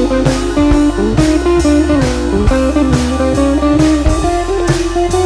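Background music: a guitar playing a bluesy melody over a steady beat.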